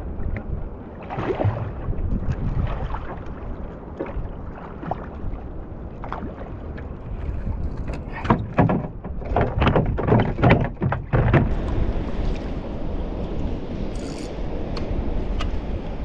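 Water slapping against a plastic fishing kayak, with a low steady rush of wind and water. In the middle comes a quick run of loud knocks and thumps on the hull.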